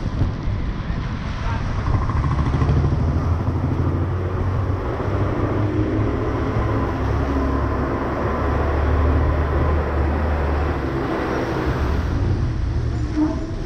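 Motor vehicle driving on a wet road: a steady engine hum under road noise. A large goods truck passes close alongside near the end.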